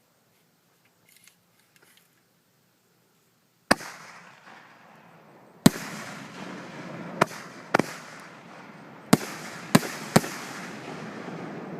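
Consumer canister firework shells fired in a chain, heard from a distance. After a near-silent start, seven sharp bangs come at uneven intervals, each followed by a lingering noisy tail. These are the shells launching from their mortar tubes and bursting in the air.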